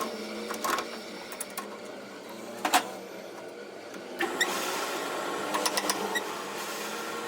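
Workshop machinery: a small motor running steadily with a few sharp metal clinks, one loud ringing strike near the middle, and a harsher, busier running sound from about four seconds in.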